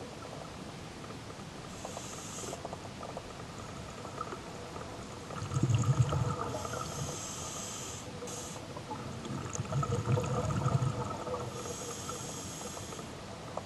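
Scuba diver breathing through a regulator underwater: three hissing inhalations about five seconds apart, with two louder bursts of bubbling exhalation between them, about six and ten seconds in.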